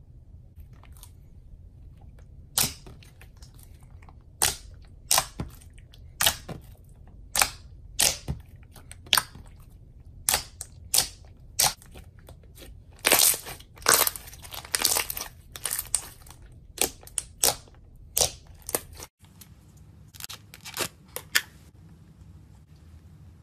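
Thick slime pressed and folded by hand, giving sharp, crisp pops and crackles at irregular intervals. They are densest about halfway through and thin out to a few softer pops near the end, over a faint steady low hum.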